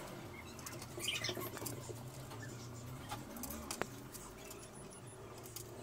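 Light scattered clicks and taps of small screws and metal table-leg parts being handled and set down on a laminated tabletop during assembly, a little louder about a second in and again near the four-second mark, over a faint low hum.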